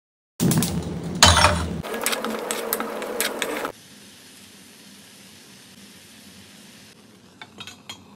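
Knife cutting strawberries on a wooden board: loud scraping and knocking with sharp clicks for about three seconds, cut off suddenly. A faint steady hiss follows, and near the end a few light clicks as a stainless steel lid is set on a pot.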